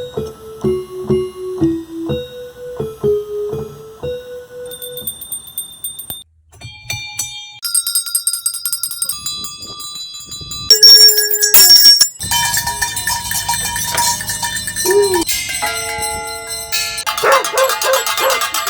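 A melody of struck musical notes, then a quick succession of different bells rung one after another, each with high, steady ringing tones. In the later part a few short rising-and-falling calls sound over the ringing.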